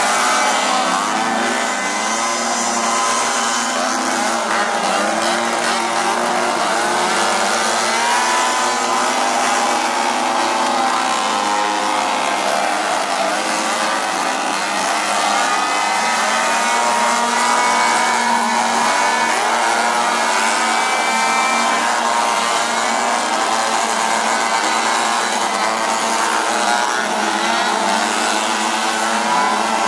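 Several two-stroke chainsaws revving at once, their engine notes rising and falling over one another in a loud, continuous sound.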